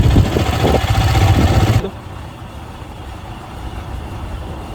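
A vehicle engine running loud with road noise on a rough road, then dropping suddenly to a much quieter low running sound about two seconds in.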